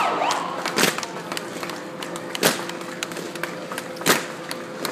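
Evzone marchers' tsarouchi shoes stamping on the asphalt in unison, three sharp stamps evenly spaced about a second and a half apart.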